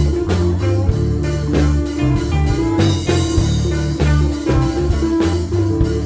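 Background music: an electric-guitar-led instrumental over bass and drums at a steady beat.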